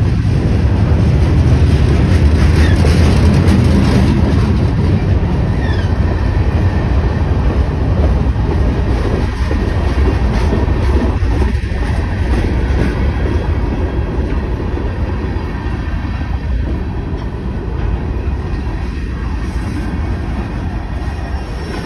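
Freight cars of a manifest train rolling past on the rails: a loud, steady rumble of steel wheels on track, with a few short high wheel squeals in the first several seconds. The rumble gradually eases toward the end.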